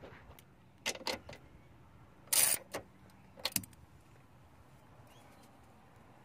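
Metal clinking and clattering from refitting a car seatbelt's anchor onto its floor bolt: two clicks about a second in, a louder clatter at about two and a half seconds, and two more clicks a second later.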